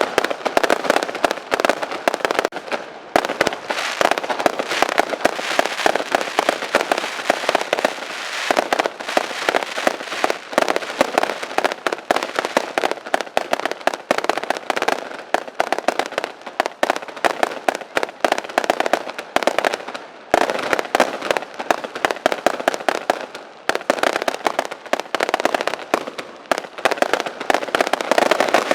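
Fireworks display: a dense, rapid barrage of crackling reports going off many times a second, with a few brief lulls.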